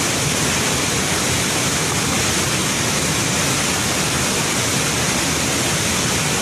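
Waterfall's falling water: a steady, loud rush with no breaks.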